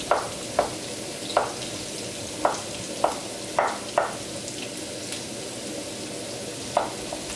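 Broad kitchen knife chopping soaked dried shiitake mushrooms on a wooden cutting board. About eight sharp knocks come at an uneven pace, with a pause of a couple of seconds before one more chop near the end, over a steady hiss.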